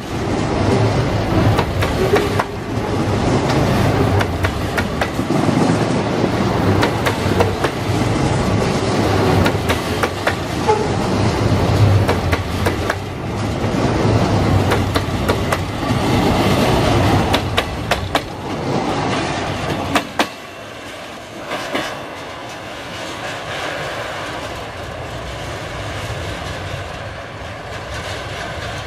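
Double-stack container train's wagons rolling past close by, a steady rumble with the wheels clicking and clattering over the rail joints. About twenty seconds in the last car goes by, and the sound drops suddenly, then fades as the train moves away.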